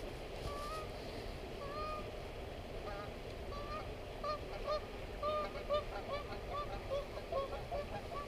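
A flock of geese honking: short repeated calls, scattered at first and coming thick and fast, several a second, from about three seconds in.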